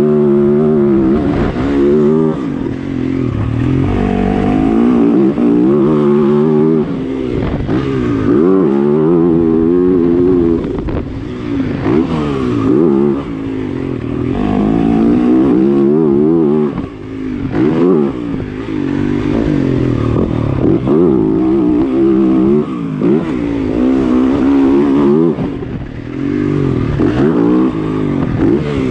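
Motocross bike engine heard from on board, revving hard and dropping again over and over as the rider opens and closes the throttle and shifts gears around the track, its pitch climbing and falling every second or two.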